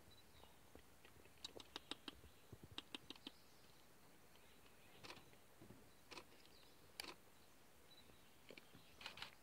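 Near silence, broken by faint, scattered short clicks, some in quick runs of three or four.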